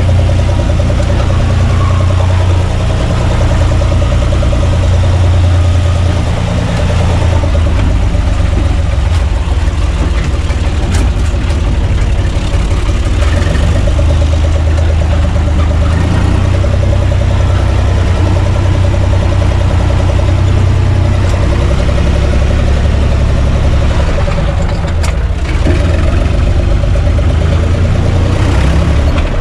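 A UTB U445 DT tractor's diesel engine running steadily as the tractor drives along, heard from inside its cab.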